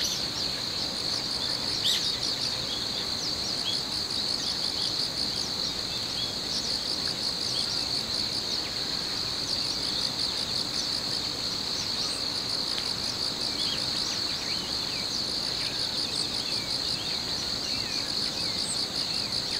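Crickets trilling in a steady high-pitched chorus, with a higher pulsed insect trill coming and going above it. Short bird chirps are scattered over the top.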